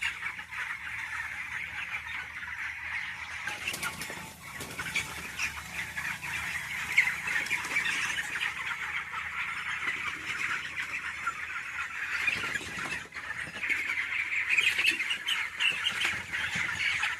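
A large flock of chickens cheeping and squawking in a dense, unbroken chorus, a little louder in the last few seconds.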